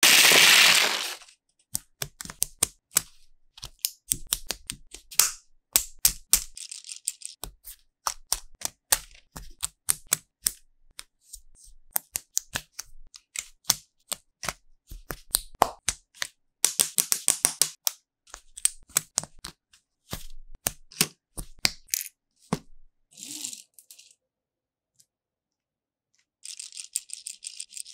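Plastic LEGO Technic pieces tumbling onto a table in a loud rattling rush, then many sharp clicks and snaps as pins, axles and beams are pressed together, with a few short scraping rustles between them.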